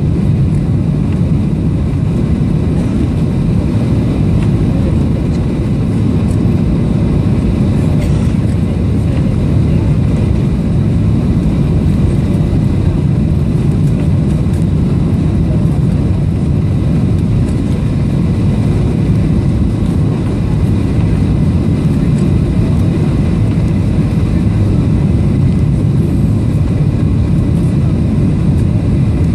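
Cabin noise of a Boeing 737-800 on final approach, heard from a window seat over the wing: a loud, steady low rumble of its CFM56 engines and the airflow, with a faint high engine whine.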